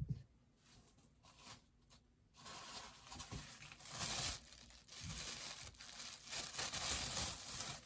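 Protective wrapping being torn and crinkled off a boxed bobblehead figure: a rustling, tearing noise that starts about two seconds in and comes in surges, after a light knock and a few small clicks at the start.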